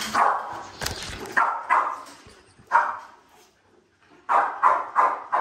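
American bully dog barking in short, sharp barks, irregularly spaced, with a quick run of four near the end. A dull knock about a second in.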